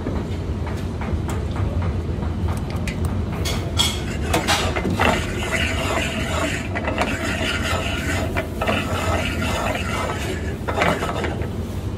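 Metal clicking and rattling of a steel saucepan and a mesh pasta basket as fresh pasta goes into melted butter, busiest from about four seconds in until near the end, over a steady low hum.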